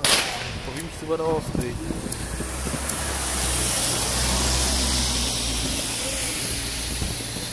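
Firework stick rocket's fuse catching with a sharp hiss, then a steady fizzing hiss that swells over several seconds, with a low steady rumble underneath.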